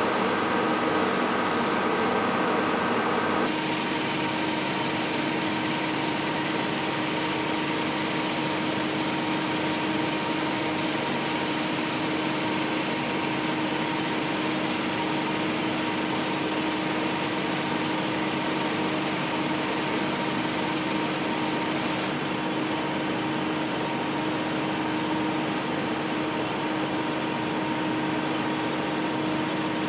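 Fletcher 3100 Series roof bolter running: a steady machine drone with a constant hum, changing in tone a few seconds in and again slightly later on.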